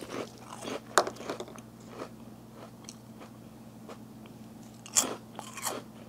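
Someone biting into and chewing light, crunchy choco churro-flavoured Turtle Chips in scattered crunches, the sharpest about a second in and about five seconds in.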